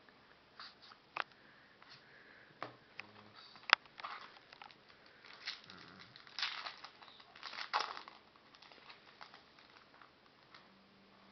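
Crinkling of a trading-card pack wrapper and the clicks and rustles of baseball cards being handled, in scattered short bursts with one sharp snap about four seconds in.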